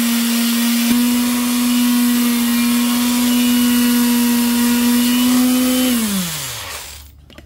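Lathe motor running at a steady pitch, spinning the welded exhaust header pipe while it is sanded with 600-grit paper. About six seconds in it is switched off and winds down to a stop.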